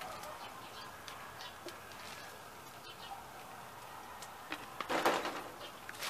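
A mostly quiet background with a few small clicks, then a short clatter and rustle about five seconds in as things are handled on the table.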